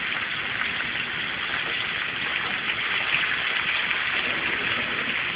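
Salmon fillet frying skin side down in hot oil in a sauté pan: a steady sizzle with fine crackling.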